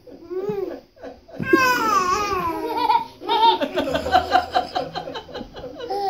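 Baby squealing and laughing: a long high squeal about a second and a half in, then a run of quick, rhythmic giggles.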